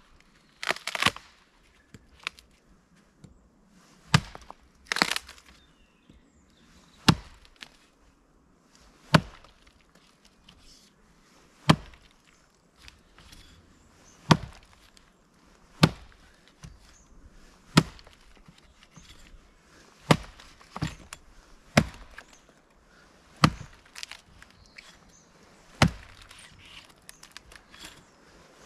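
Wood being chopped: single sharp strikes about every two seconds, with a couple of longer cracking, splintering sounds in the first few seconds.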